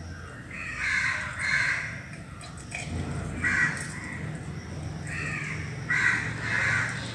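Crows cawing: about six harsh calls, two near the start, single calls in the middle and two more near the end, over a steady low hum.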